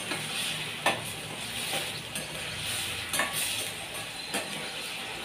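A perforated steel ladle stirring sizzling vegetables in a stainless steel pan, with a steady frying hiss. The ladle knocks sharply against the pan about three times.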